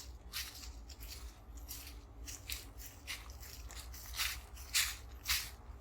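Footsteps crunching on a leaf-litter trail, about two steps a second, louder over the last two seconds, over a steady low rumble.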